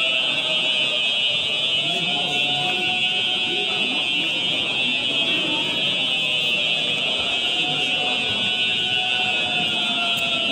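Building fire alarm sounding continuously in a fire drill, loud: a steady high-pitched electronic tone with a fainter, lower tone drifting slowly up and down beneath it.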